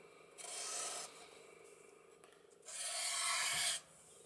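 A felt-tip marker pen drawn along the paper-covered edges of an MDF model building: two strokes, each about a second long, the first shortly after the start and the second past the middle.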